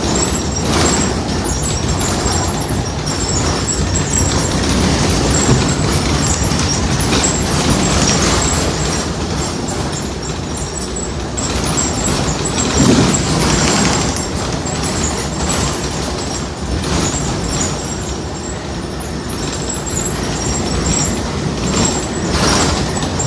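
Muni bus 6712 running on the road with a steady rumble, broken by intermittent knocks and bangs from behind the front axle, which the inspector suspects is a loose shock absorber bolt.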